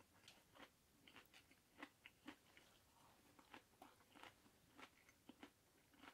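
Faint crunching and chewing of a grilled rice ball with a browned, crisp crust: an irregular series of small, sharp crunches.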